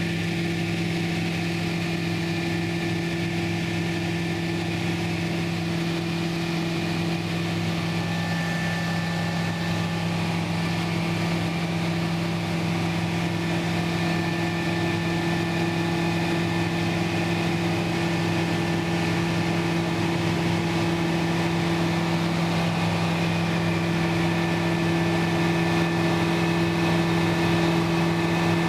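Piston engine and propeller of a light single-engine aircraft droning steadily in cruise flight, heard from inside the cockpit, slowly growing a little louder.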